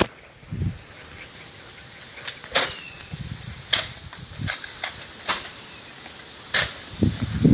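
Nerf foam-dart blasters firing during a Nerf battle: about six separate sharp snaps, one to two seconds apart, with faint rustling between them.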